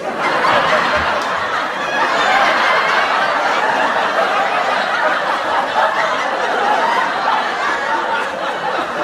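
A crowd of people laughing, many voices at once.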